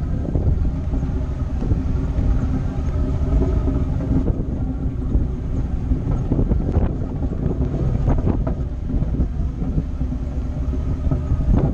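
Jeep engine running steadily at low trail speed over slickrock, with a strong low wind rumble on the microphone and a few short knocks and rattles from the vehicle about seven, eight and a half and eleven seconds in.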